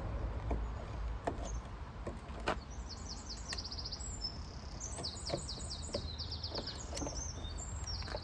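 A bird singing fast trills of high notes, repeated through the second half, over a low steady rumble and scattered sharp clicks and knocks.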